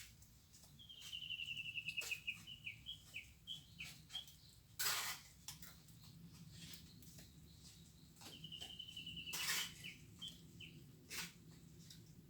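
A small bird sings twice, each time a quick run of high, rapidly repeated chirping notes lasting two to three seconds. Between and over the songs come a few short, sharp knocks or scrapes, the loudest about five seconds in.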